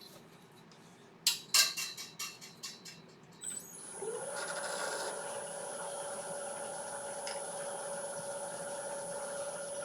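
A few clicks and knocks of tool handling, then a wood lathe starts about four seconds in, spinning up quickly and running at a steady speed with an even hum and a faint high whine.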